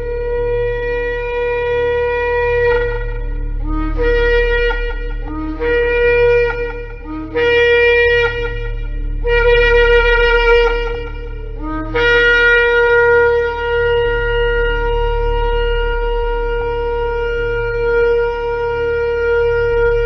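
Shofar (ram's-horn trumpet) blown: a held blast, then four shorter blasts that each break up from a lower note to the main note, then a long sustained blast starting a little past halfway.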